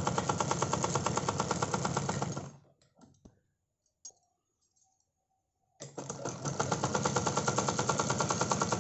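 Usha sewing machine stitching a seam in a fast, even run of needle strokes. It stops about two and a half seconds in, falls silent apart from a single click, and starts stitching again about six seconds in.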